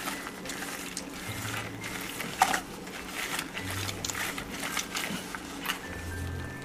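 An orange being squeezed by hand: faint wet squelching and small scattered clicks, with a sharper knock about two and a half seconds in.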